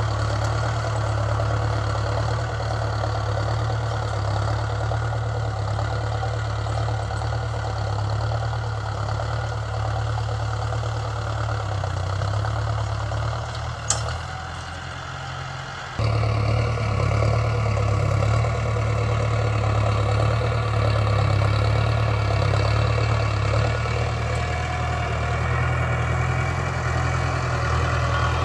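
Mahindra Arjun Novo 605 DI-i tractor's diesel engine running steadily as it pulls a seed drill through ploughed soil. About halfway through, the sound drops for a few seconds, with one sharp click, then comes back suddenly at full level.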